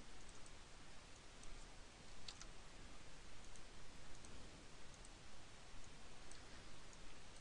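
Faint, scattered clicks of a computer mouse and keyboard as values are entered in a program, the loudest about two seconds in, over a steady background hiss.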